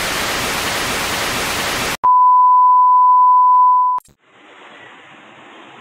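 Television static hiss for about two seconds, then a steady, loud test-pattern beep held on one pitch for two seconds, cut off with a click, as in a TV test signal. Faint street noise follows near the end.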